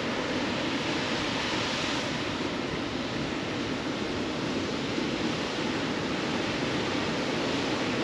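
Waterfall water rushing in a steady, even stream of noise, with no change in level.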